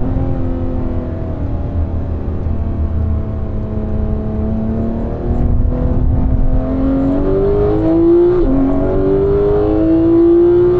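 Porsche 991 GT3's flat-six engine under way, its pitch sagging a little over the first few seconds and then climbing steadily as it accelerates. About eight seconds in the pitch drops briefly with an upshift, then rises again.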